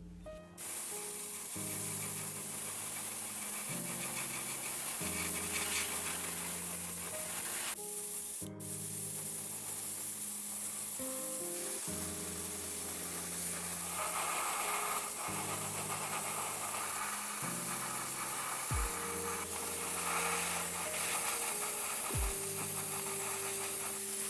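Background music with slow chord changes over a continuous rasping hiss from work on the diecast van's body.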